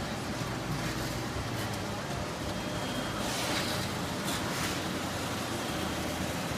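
Konica Minolta C6500 digital production press running, a steady mechanical hum of its motors, fans and paper transport. A little past halfway come two brief hissing swishes as printed sheets feed out into the finisher's output tray.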